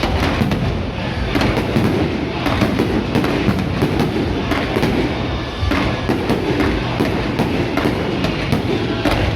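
Fireworks going off in rapid succession, many sharp bangs close together, with music playing along.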